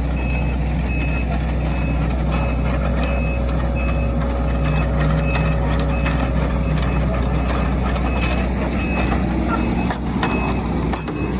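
Heavy machinery's back-up alarm: a high beep repeating about twice a second, over the steady running of a diesel engine.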